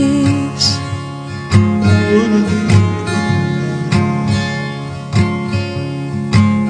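Background pop music: an instrumental passage with bright plucked guitar-like notes over bass, after a sung line ends about half a second in.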